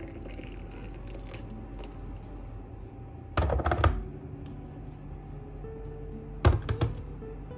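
Two short bursts of knocking and clatter, about three seconds apart, over quiet background music.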